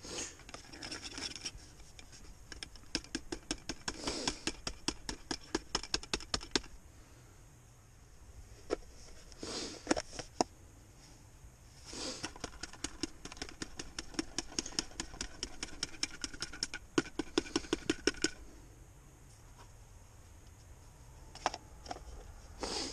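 Small hard fishing pellets trickled from a plastic lid into a plastic bait tub, rattling in quick runs of clicks with short pauses between.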